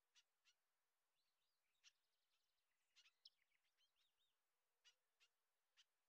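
Very faint birdsong: scattered short high chirps, with a run of quick twittering calls from about one to four seconds in.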